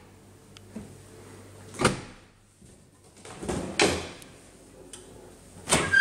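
Built-in kitchen appliance doors being handled: a knock as the dishwasher door is pushed shut about two seconds in, then a longer clatter as the fridge door is pulled open, and another knock near the end.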